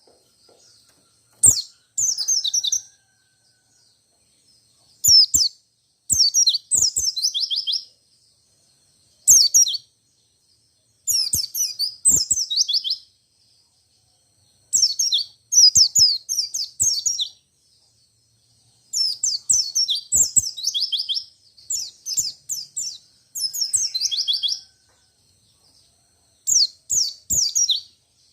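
White-eye (pleci) singing: repeated phrases of one to two seconds, each a fast rolling run of high, falling chirps, separated by short pauses.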